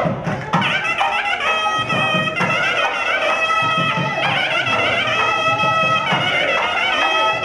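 Instrumental music from an Ayyappa devotional bhajan: a melody of held, ornamented notes on a reed- or brass-like instrument over steady drum beats.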